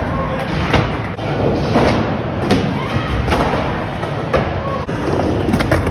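Skateboard wheels rolling on a bowl's ramp surface, with repeated thuds and slams as the board and a falling rider hit the ramp.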